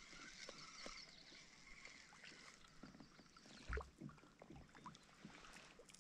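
Near silence with faint clicks of a fishing reel being wound as a small rainbow trout is brought up to a kayak, and one soft thump a little past halfway.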